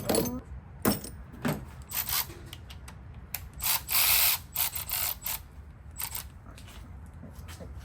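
Metal hand tools clicking and clattering in irregular knocks, as tools are rummaged through, with a longer rattle about four seconds in.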